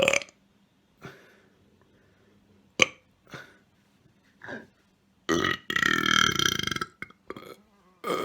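A person burping: a short burp at the start, a few brief small sounds, then one long, loud burp about five seconds in lasting around a second and a half, followed by a couple of short burps near the end.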